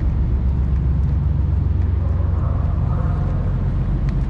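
An engine running steadily, a continuous low rumble with a fine even pulse.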